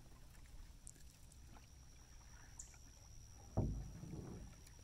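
Quiet canoe paddling on calm water: a soft paddle stroke swishes through the water about three and a half seconds in, with faint water sounds around it.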